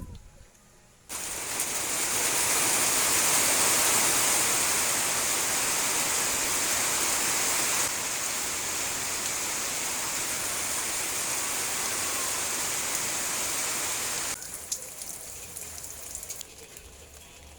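Steady rushing water, starting suddenly about a second in and cutting off suddenly near the end.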